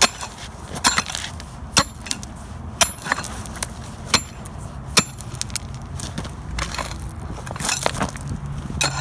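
Pickaxe striking and breaking up the saw-cut edge of asphalt pavement: sharp hits about once a second, then a quicker cluster of blows near the end, over a steady low hum.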